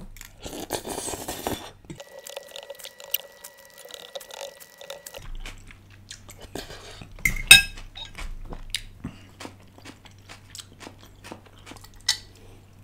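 Close-miked eating of stir-fried udon noodles: a slurp of noodles off a fork, then chewing with wet mouth sounds. A metal fork clicks against a glass bowl, loudest about seven and a half seconds in.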